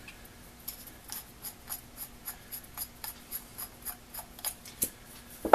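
Blowtorch hand pump's leather-cupped piston being worked by hand in its small brass barrel: a run of light, quick clicks, about four a second, with a sharper click near the end.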